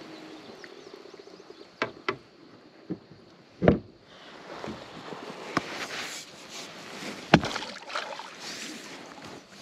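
Several sharp slaps on the water, the loudest two deep smacks about four and seven seconds in, with kayak paddle splashing between them: a beaver slapping its tail on the water and a kayak paddle slapped flat on the surface in reply.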